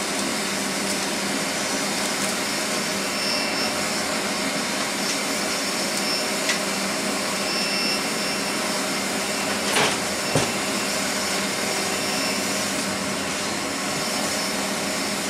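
Steady whirring drone of a fan running in the garage, with a faint whine. Over it come a few light clicks of metal parts being handled, the loudest about ten seconds in.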